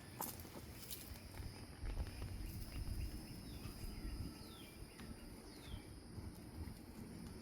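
Outdoor garden ambience: a steady high insect drone and a few short descending bird chirps near the middle, over low rustling and handling noise with scattered soft clicks.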